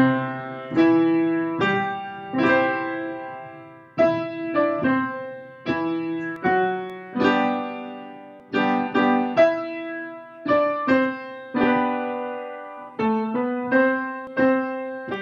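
A slow piece played on the piano, with chords and single notes struck about once or twice a second, each one ringing and then dying away.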